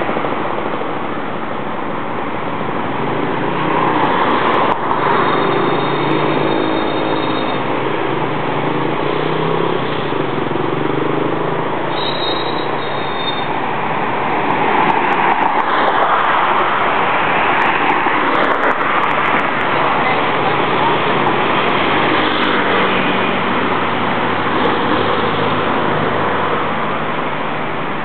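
Street traffic: cars passing with engine noise and tyre hiss, a continuous road din that swells as vehicles go by.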